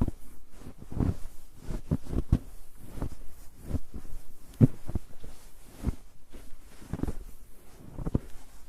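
Footsteps walking on a snow-covered road: a steady walking pace of short, muffled thuds of boots pressing into snow, about one step a second.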